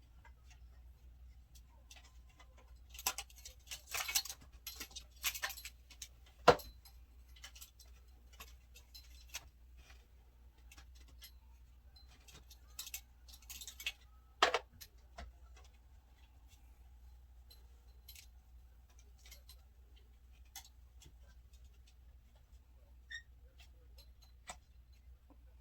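Hands handling and screwing a plastic ring light onto the threaded top of its stand: scattered clicks and rattles, with two sharp knocks, the louder one about six seconds in and another about fourteen seconds in.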